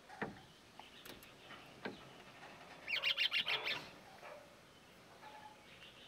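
Red-rumped parrot calling: a quick burst of high, rapid chirping notes about halfway through, lasting under a second, with a few fainter single notes before it.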